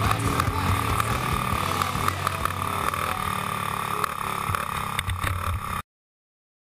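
Racing kart's small engine running at speed, with scattered knocks and rattles; the sound cuts off abruptly near the end.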